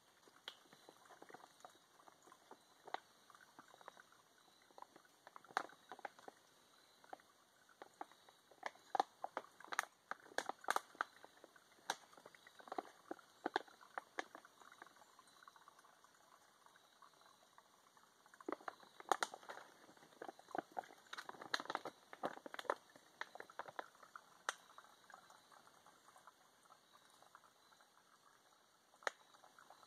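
Water squeezed through a Sawyer Squeeze filter trickling and gurgling into a plastic bottle, with irregular sharp ticks and splashes that come in two busy spells.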